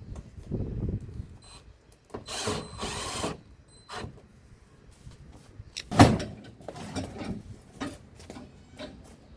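Knocks and clicks from the plastic panels and tools of a front-loading washing machine being handled and refitted. There is a rough rasp lasting about a second, starting about two seconds in, and one loud knock about six seconds in.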